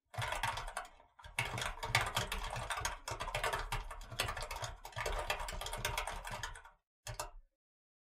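Typing on a mechanical keyboard: a short run of rapid keystrokes, a brief pause, then about five seconds of continuous fast typing, and one last short burst near the end.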